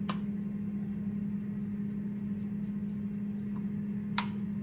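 A steady low hum, with a few short sharp clicks of a metal spoon against a glass baking dish: one at the start and a sharper one near the end.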